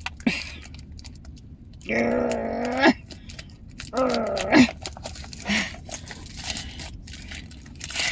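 A woman groaning with effort twice, one long strained groan then a shorter one falling at the end, as she struggles to pull open tough plastic food packaging; small clicks and crinkles of the plastic between the groans.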